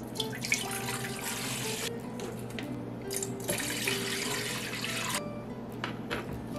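Water poured from a plastic measuring cup into a metal stockpot, splashing onto the pot bottom in two long pours with a short break between.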